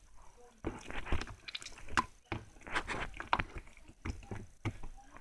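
Slime being squished and pressed by hand, giving irregular wet clicks and pops.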